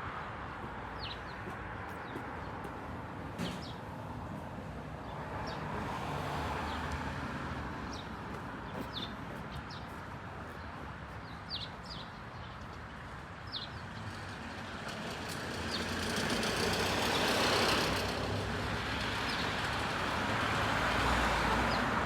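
Outdoor ambience of steady road traffic noise that swells as a vehicle passes about three quarters of the way through. Short high bird chirps sound now and then over it.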